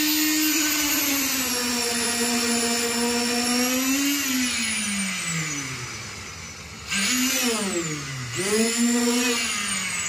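Motor of the machine pushing concrete up a delivery hose, running with a steady whine. About four seconds in it slows and its pitch falls away nearly to a stop, then it speeds up again about seven seconds in, dips once more and recovers.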